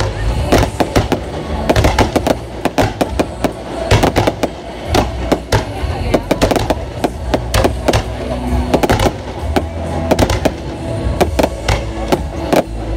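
Fireworks display going off: a dense, irregular run of sharp bangs and crackles, several a second, over a low rumble.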